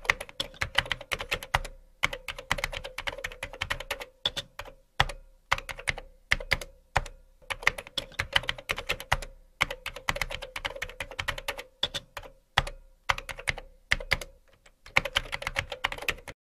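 Rapid keyboard typing, runs of keystrokes broken by short pauses, over a faint steady hum.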